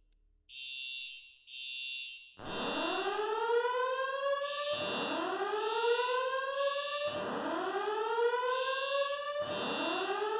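Building voice-evacuation fire alarm sounding. High horn beeps start about half a second in and keep coming in groups of three. From about two seconds in, a whoop tone rises in pitch over and over, four whoops about two and a half seconds apart, the evacuation alert tone of the system.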